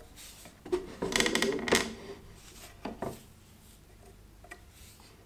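A hand file rasping against wood in a quick run of short strokes about a second in, with a few light knocks of tool and wood before and after it.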